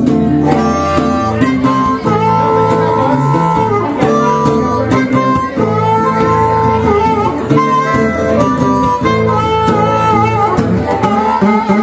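Harmonica played from a neck rack, holding long notes that step from pitch to pitch, over a strummed acoustic guitar.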